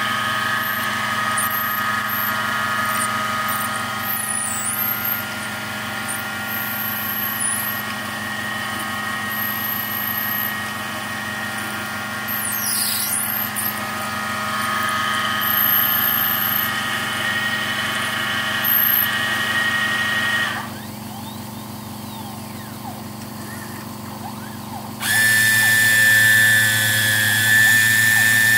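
Home-built CNC lathe machining brass bar, with a steady motor whine over a low hum. The whine stops about 21 seconds in, and a louder, higher whine with a hiss starts about 25 seconds in.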